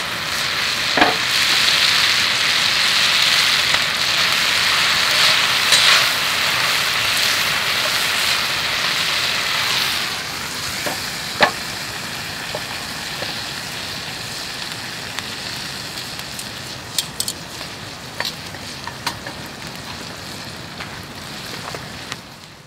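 Food sizzling in a frying pan: a steady hiss with scattered sharp pops and clicks, easing down after about ten seconds and fading out at the end.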